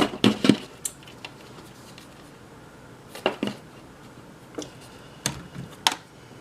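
Camcorder batteries and hard plastic parts handled on a bench: scattered, irregular clicks and knocks, with a quieter pause before more clatter about three seconds in.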